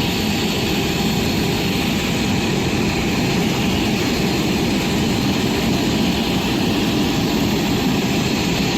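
Jet airliner engines running loud and steady: a dense, even rushing noise with a faint high whine, heavy in the low end.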